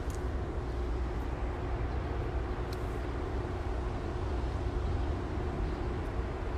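Steady low rumble of outdoor background noise, with a faint steady hum and a few light clicks.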